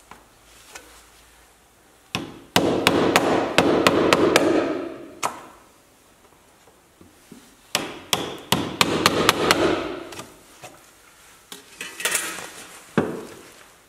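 Ball-peen hammer driving a flat steel blade into the seam between a 1987 Porsche 911 Carrera's front fender and its body, to part the fender from the body. The blows come in two runs of quick strikes, each over a rough scraping noise, and a few more blows follow near the end.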